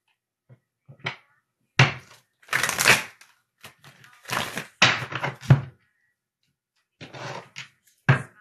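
A deck of tarot cards being shuffled by hand in a series of short bursts, several of them with a thump as the cards knock against the table.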